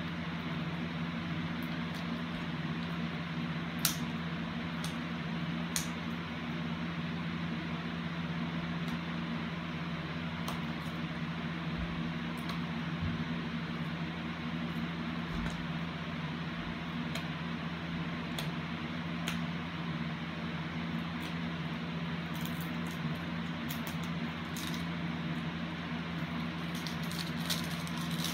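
Steady low hum with an even hiss, broken by a few faint clicks.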